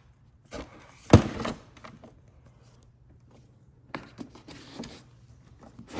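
Hard-plastic gear being handled and set down into a foam-lined carrying case: one sharp thunk about a second in, with a few lighter clicks and knocks later.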